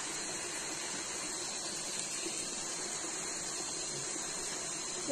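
Steady rush of shallow river water flowing over rocks, an even hiss with no distinct splashes.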